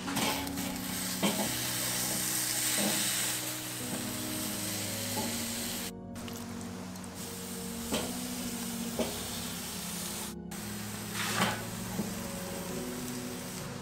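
Raw marinated chicken leg quarters sizzling as they are laid one by one on a hot, oiled charcoal kettle-grill grate, with a few brief clicks as pieces go down. Background music with sustained notes plays under it.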